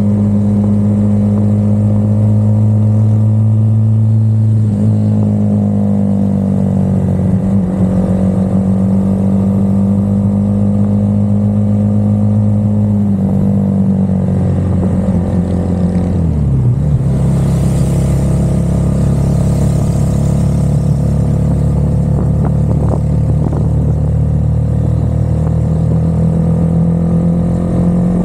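Car engine running steadily, its pitch stepping down a few times in the first half and then holding level.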